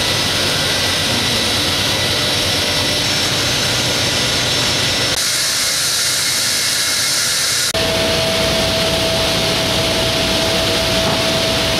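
Loud, steady noise of industrial woodworking machines running in a mill shop. It changes abruptly about five seconds in, turning brighter and hissier, and again just before eight seconds, after which a steady whine runs through the rest.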